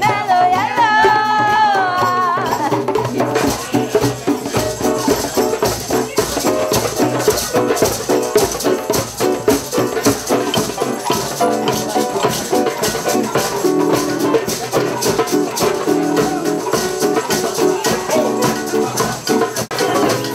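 Drum circle: several hand-played djembes keep up a fast, dense rhythm, with rattling percussion running through it. In the first two seconds a voice sings a wavering, sliding note over the drums.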